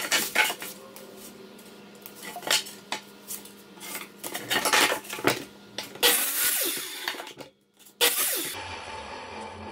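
Clattering, tapping and knocking of hand tools and rigid foam board being handled, measured and marked on a plywood floor, with a longer rough scraping noise about six seconds in.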